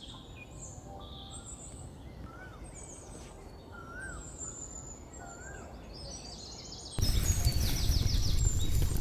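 Birds calling with short chirps and whistled notes over a low outdoor hiss. About seven seconds in, a much louder, dense noisy sound with a rapid repeating pulse cuts in abruptly.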